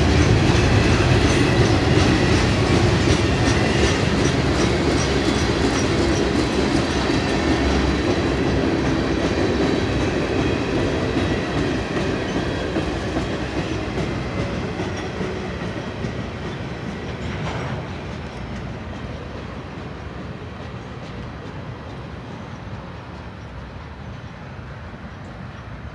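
Freight cars of a mixed manifest train rolling past on the rails, the wheels clicking rhythmically over the rail joints. The sound fades steadily as the end of the train moves away, with one clank about seventeen seconds in.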